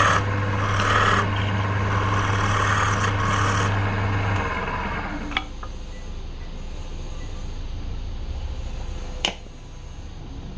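Wood lathe running, with a tool rasping against the spinning wood in uneven bursts; the motor hum stops about four seconds in. Two sharp clicks follow, some four seconds apart.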